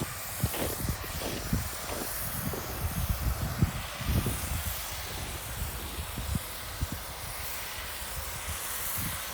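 Snowmaking machine spraying with a steady hiss, with wind buffeting the microphone in irregular low gusts.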